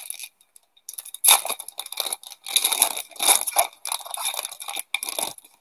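The foil wrapper of a 1997-98 SPX hockey card pack crinkling and tearing as it is ripped open and the cards are pulled out. It comes as a run of irregular crackles starting about a second in.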